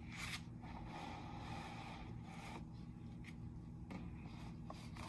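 Quiet room tone with a steady low hum and a few faint, brief rustles of the paper book's pages being handled.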